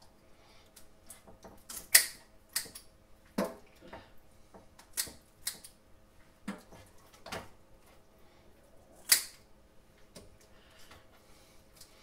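Scissors snipping the fins off a horse mackerel (scad): irregular sharp clicks of the blades closing, about one a second, the loudest about two seconds in and again near nine seconds.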